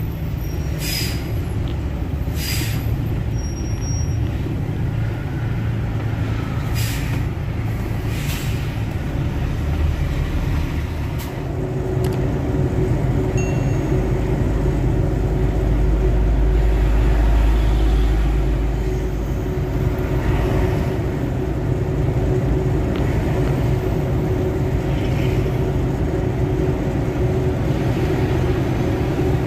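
Heavily loaded tractor-trailer truck on the move, with a steady engine and road rumble. Four short air-brake hisses come in the first nine seconds, and a deeper rumble swells up around the middle.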